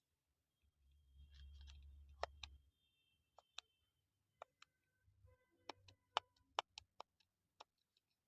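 Buttons on a diagnostic scan tool being pressed while vehicle and menu options are selected: a dozen or so sharp clicks at irregular intervals. A faint low hum runs for about a second and a half, starting about a second in.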